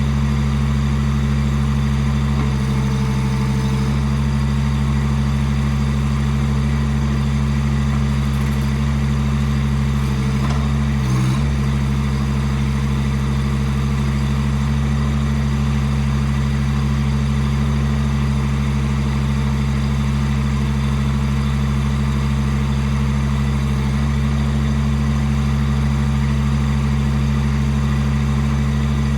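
Chinese mini excavator's small engine running steadily, its note changing briefly about three seconds in and again about eleven seconds in.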